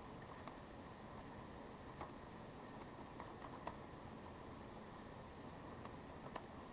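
Laptop keyboard typing: a handful of faint, irregular key clicks, bunched about three seconds in and two more near the end, over a steady faint room hiss.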